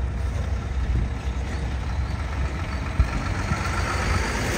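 Freight train passing: a steady low rumble that grows a little brighter near the end.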